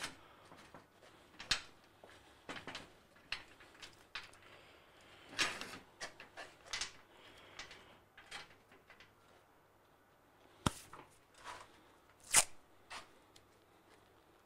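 Scattered handling noises of hands working a rod repair, setting and securing the rod: light taps, rustles and clicks, with two sharper clicks near the end.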